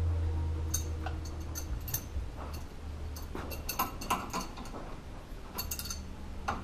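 Light metallic clicks and taps from hands working at the spindle nut and cotter pin of a front disc-brake hub, coming in small scattered clusters. A low steady hum fades out about two seconds in.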